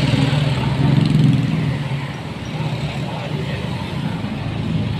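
A minibus passing close by with its engine running, loudest about a second in, then fading into steady road traffic.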